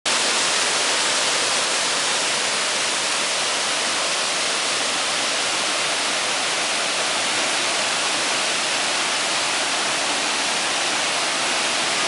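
Waterfall pouring over rock into its pool: a steady, unbroken rush of water, bright and hissy.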